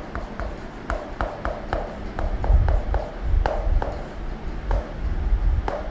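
Chalk tapping and scratching on a blackboard as an equation is written: a quick, irregular series of short sharp taps, about two or three a second.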